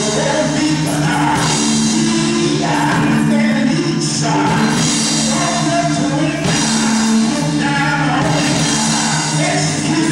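A man singing into a handheld microphone, amplified, over instrumental accompaniment of held chords.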